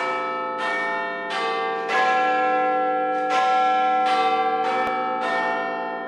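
A series of bell strikes in a sequence, each note ringing on under the next, like a peal of bells.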